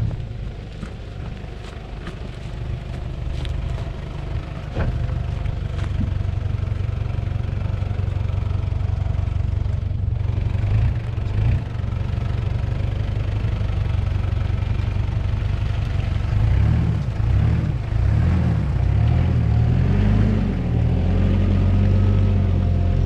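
120-series Toyota Land Cruiser Prado's engine running as the 4WD creeps along a muddy bush track. In the last several seconds the engine note rises and falls repeatedly as the revs change.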